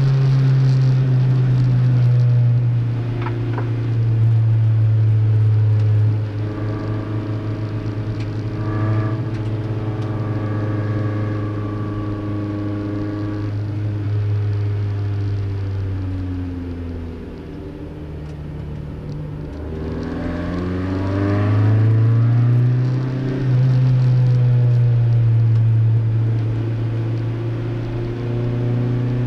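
Toyota MR2's four-cylinder racing engine running hard at high revs. The revs fall away as it brakes and changes down for a corner about halfway through, then climb again as it accelerates out and hold high near the end.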